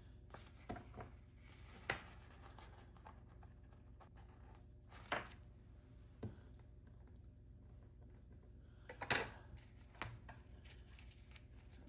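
Faint, scattered rustles and soft taps of sticker sheets and paper pages being handled, over a quiet room hum.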